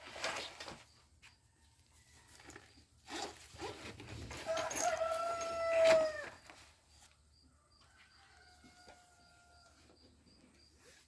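A dove cooing: one long, slightly falling coo in the middle, then a fainter call a little later. Rustling and light bumps come before and around the first coo.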